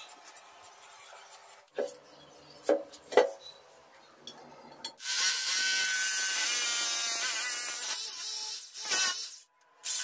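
Corded electric drill boring a fixing hole into a ceramic floor tile for the commode's floor screws, running steadily for about four seconds from midway with its pitch wavering under load, then briefly again at the end. A few knocks come before it.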